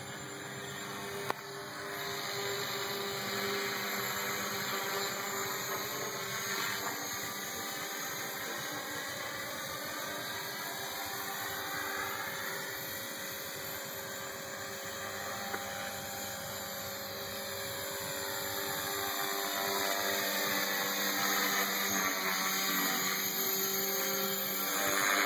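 Align T-Rex 500 flybarless electric RC helicopter flying overhead: the steady whine of its motor and rotor blades, wavering as it circles and getting louder near the end as it comes closer. A single sharp click about a second in.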